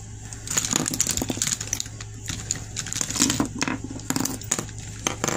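Hands rummaging through a makeup bag: irregular crinkling, rustling and small clicks of cosmetics and packaging being shifted about.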